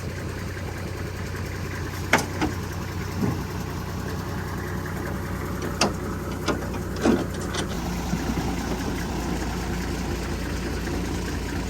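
A vehicle engine running steadily, with a few sharp knocks or rattles between about two and eight seconds in.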